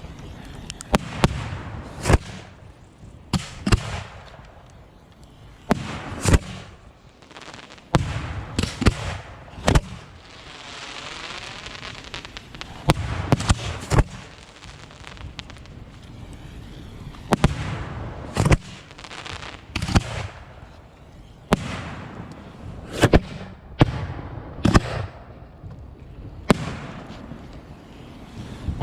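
Fireworks going off: a long run of sharp bangs at irregular intervals, some in quick pairs, with a stretch of hissing about ten seconds in.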